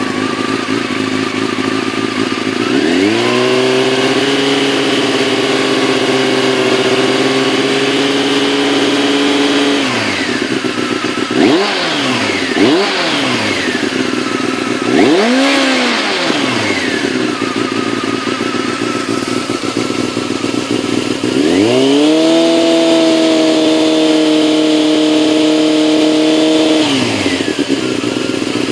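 Honda CBR600 F2 inline-four engine with an all-stainless exhaust and down pipes, revved from idle and held at high revs twice for several seconds each, with quick throttle blips between the two holds.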